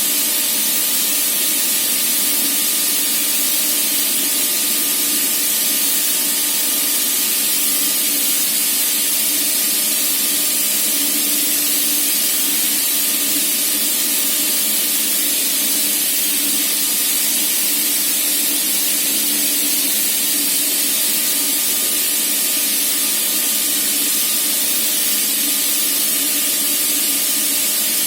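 Screw compressor running steadily under load at about 7.4 bar during a flow test after a repair of its screw pair (airend), with its compressed air rushing out through a flowmeter: a loud, even hiss over a steady machine hum.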